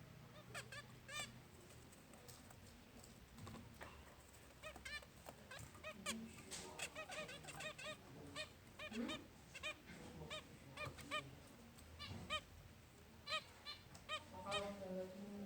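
Zebra finches calling: many short, nasal, honking beeps, some overlapping, sparse at first and much busier from about six seconds in.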